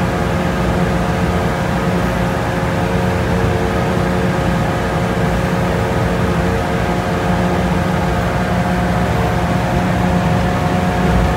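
Sherp ATV's diesel engine running steadily at constant pitch, without revving, as the amphibious vehicle moves through a duckweed-covered pond.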